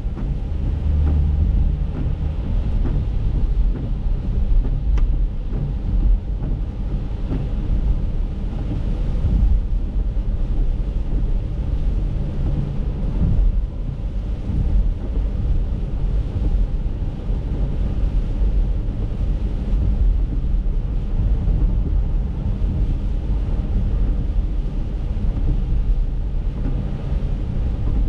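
Steady in-cabin road noise of an Acura MDX driving on a wet road in the rain: a low rumble from tyres and engine, with the hiss of the tyres on water.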